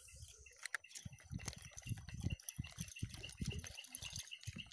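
Irregular low rumbles and knocks of a fishing rod and spinning reel being handled, over a steady high chirping call from an animal that repeats about four times a second.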